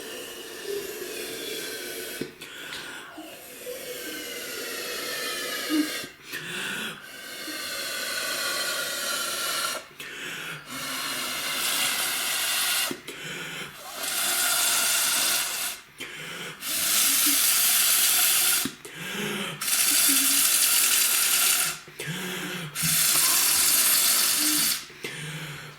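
Air being blown into a lump of toy slime to inflate a big bubble: a series of long hissing blows, about eight, each a few seconds long with short pauses for breath, growing louder as it goes on.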